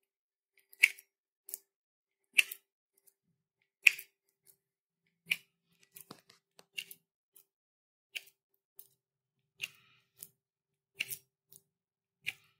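Sharp metal clicks about every second and a half, from an intramedullary pin and its hand chuck as the pin is twisted forward into a dog's tibia.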